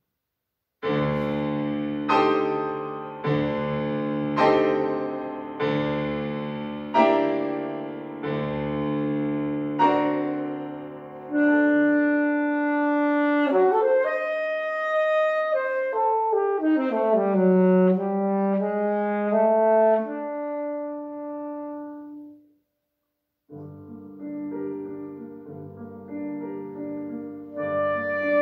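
Saxophone and grand piano duo. First comes a run of struck piano chords, each ringing and fading, about one a second. Then the saxophone plays a melody of held notes with a sliding fall in pitch, stops briefly, and the two resume softly together, growing louder near the end.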